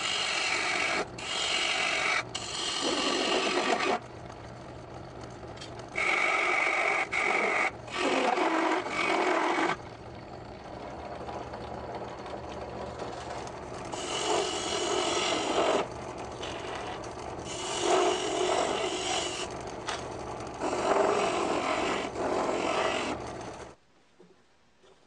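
Turning chisel cutting a spinning wooden blank on a homemade lathe, in several scraping passes of a few seconds each, with the lathe's steady motor hum between them. The sound cuts off suddenly about a second before the end.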